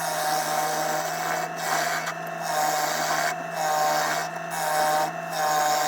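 Wood lathe running in reverse with a turning tool cutting the inside of a wet-wood bird's mouth bowl: a rasping, scraping cut over the lathe's steady hum, easing off briefly about once a second as the tool is moved through passes.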